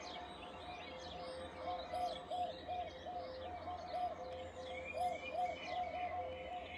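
Small garden birds chirping and twittering in quick short calls, over a low pulsing tone that repeats about two to three times a second above a steady hum.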